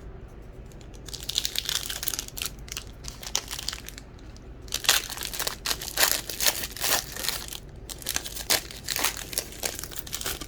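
Wrapper of a Donruss baseball card pack crinkling and tearing as it is opened, in two spells of dense crackling: a shorter one about a second in and a longer one from about the middle to near the end.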